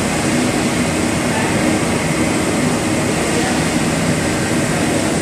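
Chain grate coal-fired boiler plant running: a steady, loud, even machinery noise with a faint low hum underneath.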